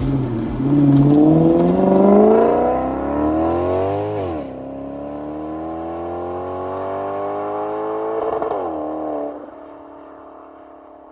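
Maserati GranCabrio 4.7 Sport's 4.7-litre V8 accelerating: the engine note climbs for about four seconds, drops sharply at an upshift, then climbs again more slowly. About eight seconds in the pitch dips once more and the engine settles lower and quieter.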